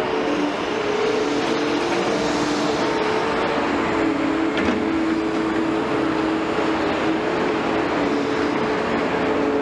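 Liebherr 946 excavator's diesel engine and hydraulics running steadily under work, with a whine from the machine and a brief knock about four and a half seconds in.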